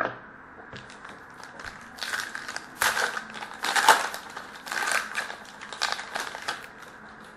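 Wrapper of a hockey card pack being torn open and crinkled by hand. There is a single tap at the start, then crinkling comes in a series of loud bursts from about two seconds in until near the end.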